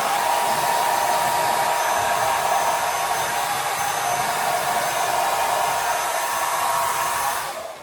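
Hair dryer blowing steadily with a faint whine, switched off near the end and dying away.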